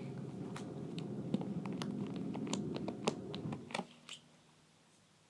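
Pink fluffy slime being squished and handled: a steady soft squelching with many small clicks and pops, stopping about four seconds in.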